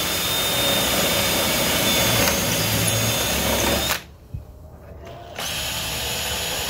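Cordless drill running steadily as its twist bit re-drills filled hardware holes in a wooden drawer front. It stops about four seconds in and starts again a second and a half later for the next hole.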